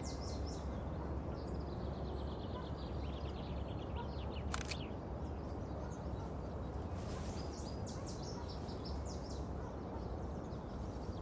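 Steady outdoor ambience filled with high, rapid chirping, and a single sharp click about four and a half seconds in: the shutter of a handheld film camera being released.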